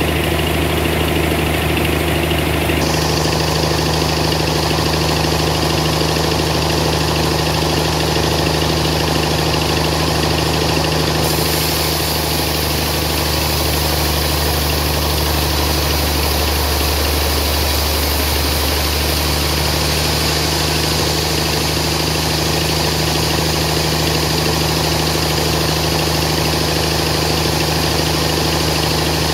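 Band sawmill running with a steady low hum, its blade cutting lengthwise through a suar wood log; a higher hiss grows louder about three seconds in and again about eleven seconds in.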